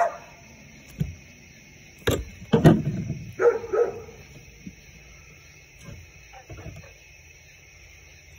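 A dog barking and yipping in short bursts, loudest two to four seconds in and fainter again about six seconds in, over a steady high-pitched background hum.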